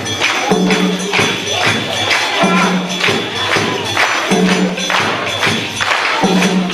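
Percussion-led music: rapid drum and shaker or jingle strikes, with a low note that comes back about every two seconds.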